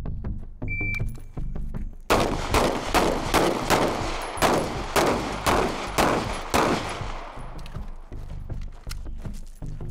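Handgun fired in a rapid string, about a dozen shots at two to three a second, each with a ringing tail. The shots start about two seconds in and stop near seven seconds, over electronic music with a steady beat.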